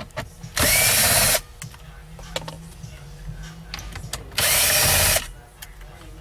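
A power drill/driver runs twice, each run under a second and about four seconds apart, backing out screws in the dash.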